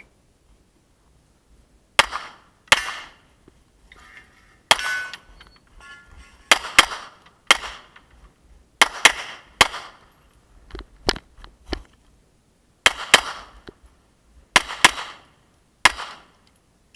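Canik TP9SA 9mm pistol firing 147-grain handloads on a practical-shooting stage. The shots come mostly in quick pairs with short pauses between target groups, starting about two seconds in and stopping shortly before the end, with a brief ringing tone after the shots around four to six seconds in.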